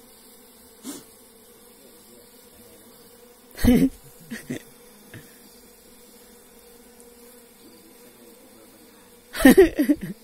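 Honeybees at a wooden box hive buzzing in a steady low hum as they swarm over a bare hand, broken by two short, louder sounds about four seconds in and near the end.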